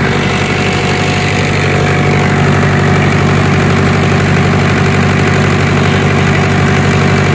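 Reconditioned Denyo generator set's diesel engine running steadily at constant speed after a successful restart, a loud, even hum with no change in pitch.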